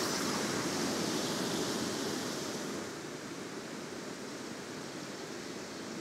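Rushing water of a river's rapids and small waterfall, a steady hiss, easing a little about halfway through.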